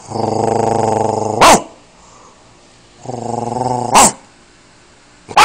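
Two long, low growls, each cut off by a single sharp bark from a Frenchton (French bulldog–Boston terrier mix), and a third bark near the end.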